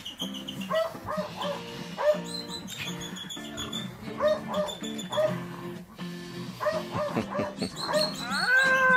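Music with a steady beat, over which a Belgian Malinois puppy gives short high yips and whines as it bites and tugs at a man's finger, with a longer falling whine near the end.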